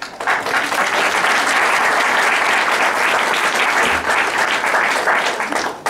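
Audience applauding: loud, dense clapping that begins at once and cuts off suddenly near the end.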